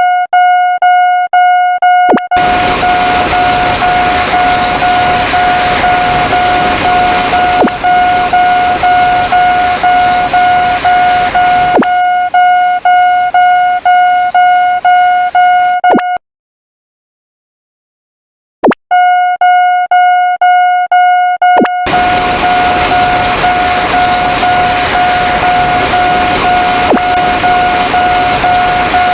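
Railroad crossing warning bell ringing in a fast, even, repeating beat while a train rushes past. The bell and train noise stop suddenly a little after halfway, then the bell starts again and another train passes.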